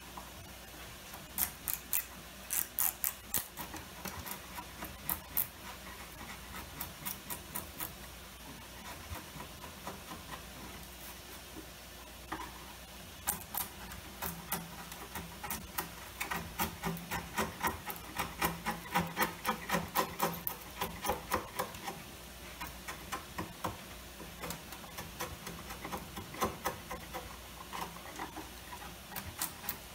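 Steel chisel scraping and prying old mahogany veneer off a wooden chest rail in runs of quick, short strokes, the veneer flaking away. The strokes come thickest a little past the middle.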